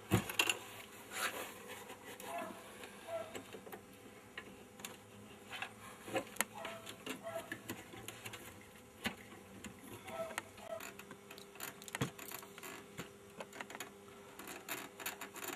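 Faint, scattered clicks and taps of hands working a stiff sound-head cable and small metal parts inside a 16 mm sound film projector's housing, with a faint steady hum coming in later.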